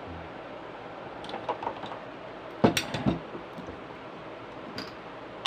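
Clicks and knocks of an electric fan motor's metal housing and plastic gearbox parts being handled on a bench, with a sharper knock a little before halfway and a second one just after.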